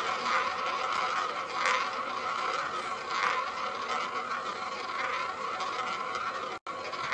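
Roulette ball rolling around a spinning roulette wheel, a steady whir with faint swells as it laps the track. The sound cuts out for an instant near the end.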